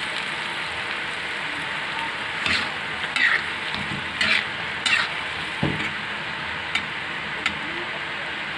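Metal spatula scraping and stirring in a wok over a steady sizzle, the stir-fry cooking in a little water. The scrapes come in a run, roughly one a second, from about two seconds in.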